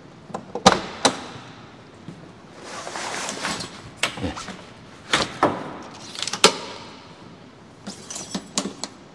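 Pop-up truck camper roof being raised by hand and its tent poles extended: a handful of sharp knocks and clicks from the frame and poles, the loudest about six and a half seconds in, with a stretch of tent fabric rustling about three seconds in.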